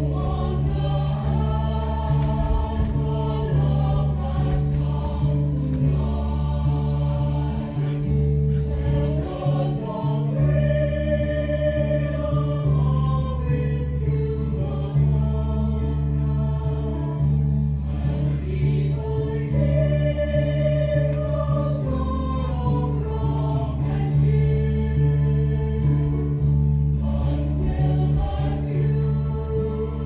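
Choral music: several voices singing slow, held notes over a steady low drone.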